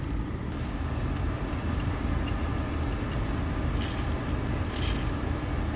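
Car running, heard from inside the cabin as a steady low rumble, with two brief sharper sounds about four and five seconds in.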